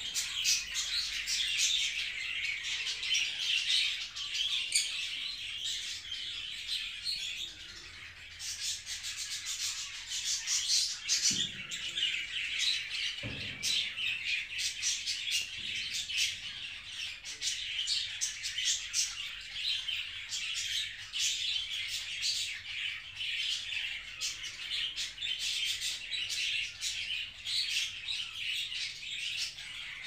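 Dense, continuous chirping and chattering of many caged small birds, with two brief low thumps partway through.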